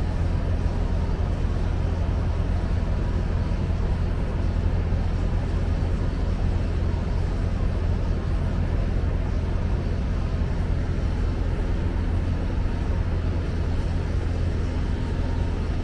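Metro D Line subway train running, a steady low rumble heard from inside the car.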